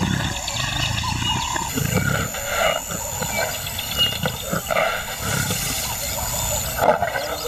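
Lion growling and roaring in rough, irregular bursts.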